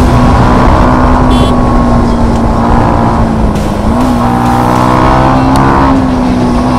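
Single-cylinder motorcycle engine running at steady revs while riding, its pitch holding level with a brief small rise about four seconds in.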